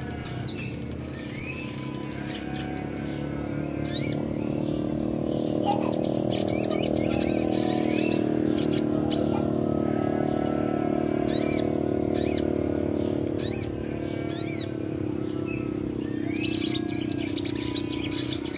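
Young sogon bird in full song: rapid, sharp chirps and quick squiggly notes coming in bursts, densest about four to eight seconds in and again near the end, over a steady low hum.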